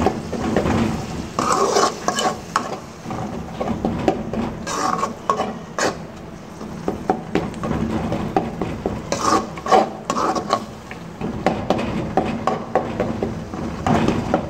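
Tomatoes being stirred into a frying onion and spice masala in a pan: repeated scraping and knocking against the pan over a light sizzle.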